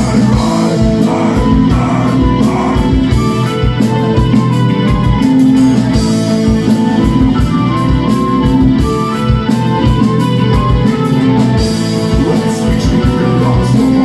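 Live metal band playing: a flute carries a melody of held notes over electric guitars, bass guitar and a fast drum kit.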